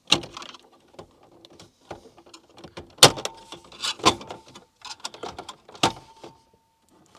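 Plastic dashboard trim frame around a van's radio and climate-control panel being pried off by hand. Several sharp snaps as its retaining clips let go, with plastic rattling and scraping between them.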